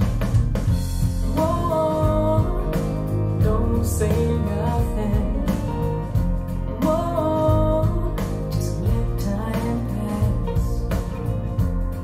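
Rock song with singing and drums, played through Wharfedale Diamond 240 floorstanding speakers and picked up by a microphone in the room. A held sung line comes back about every five and a half seconds over a steady beat.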